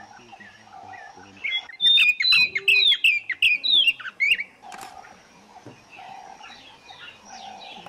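Wild birds calling: a loud run of quick chirps and whistled notes sliding down and up in pitch from about a second and a half in, lasting about three seconds, over a fainter lower call repeated every second or so.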